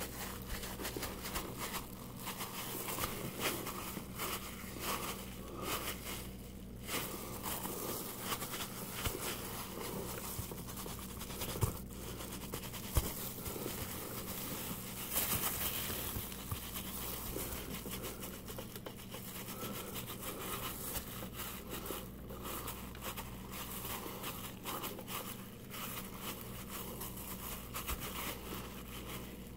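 Plastic-gloved hands pressing and smoothing raw meatloaf mixture into a glass loaf pan: faint, irregular squishing and crinkling of the gloves, with a couple of light knocks against the pan about halfway through. A low steady hum lies underneath.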